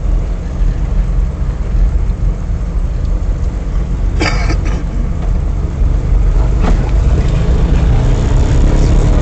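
Car rolling slowly over a rough dirt lane, heard from inside the cabin as a steady low rumble of engine and tyres. A sharp knock comes about four seconds in, and a fainter one just before seven seconds.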